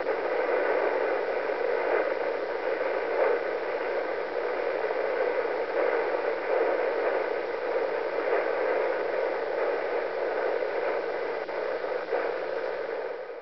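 Radio-telescope recording of pulsar CP0834 (PSR B0834+06) played as audio: a steady radio static hiss. The pulsar's beats, one every 1.27 seconds, hardly stand out from it. A faint low hum lies underneath.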